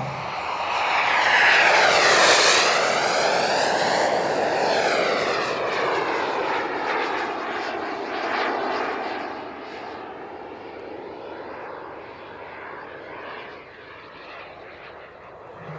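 Model jet turbine of a radio-controlled F-104 Starfighter in a fast, low flypast. The rushing roar swells to its loudest about two seconds in, while a high whine drops in pitch as the jet passes. It then fades steadily as the jet draws away.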